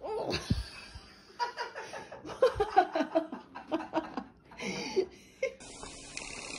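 A person laughing in short, irregular bursts; about five and a half seconds in it cuts off and gives way to a steady hiss.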